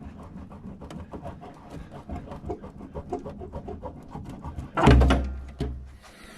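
The MGA 1600's steering wheel is being worked off the splined steering column: small metallic clicks and rattles, then one loud clunk about five seconds in as it comes free.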